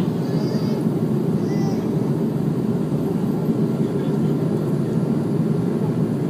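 Steady low rumble of an Airbus A340-300's engines and airflow, heard inside the passenger cabin.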